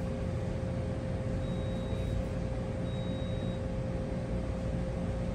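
Steady low machine hum and rumble with a constant mid-pitched tone, and two short high beeps, each about half a second long, a second apart near the middle.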